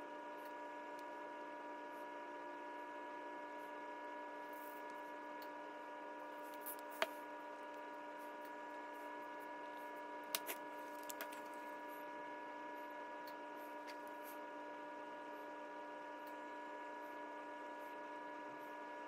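Faint steady electrical hum made of several held tones. A few faint light clicks come about seven seconds in and twice more a few seconds later.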